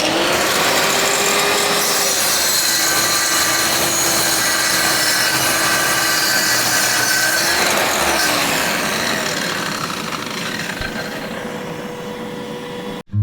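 Electric power saw cutting through a 2x4. The motor's whine drops in pitch as the blade works through the wood and rises again as it finishes the cut, and the sound cuts off suddenly near the end.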